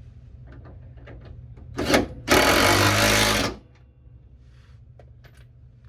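A power tool driving a bolt home on the rear sway bar. It gives a brief burst about two seconds in, then runs loud for just over a second and stops, with a few small clicks of parts around it.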